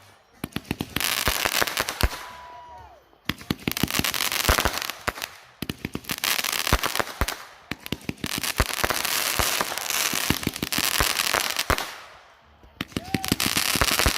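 Boomer Bang consumer aerial firework cake firing volley after volley. Each burst of sharp crackling bangs lasts a second or two, with short gaps between. A brief whistle sounds about two seconds in and again near the end.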